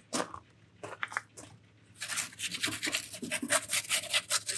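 Metal peel and fire rake working inside a wood-fired oven: a few light knocks, then from about two seconds in a continuous rasping scrape of metal over the oven floor and embers.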